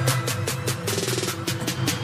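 Electronic dance music with a fast drum beat over sustained notes and a steady bass.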